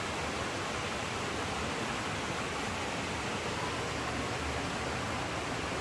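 Steady rushing of a river flowing nearby, an even hiss with no breaks.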